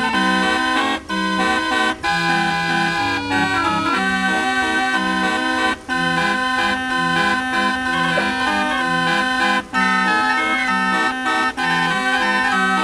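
Hand-cranked barrel organ (street organ with pipes) playing a tune: held melody notes over a repeating bass pattern, with a few brief breaks in the sound.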